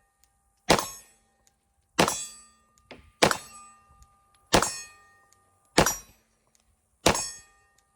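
Six shots from a Glock 45 9mm pistol, fired at a steady slow pace of about one every 1.3 seconds. Each report has a short metallic ring after it.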